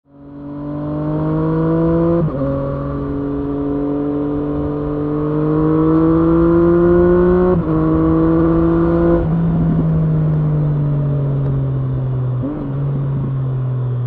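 Triumph Street Triple's inline three-cylinder engine through an SC-Project SC1-R slip-on exhaust with its dB-killer fitted, heard from the rider's seat while riding. The engine note fades in, climbs as the bike accelerates, and breaks twice with quick upshifts, about two seconds in and again about seven and a half seconds in. From about nine seconds in the throttle is eased off and the note sinks slowly.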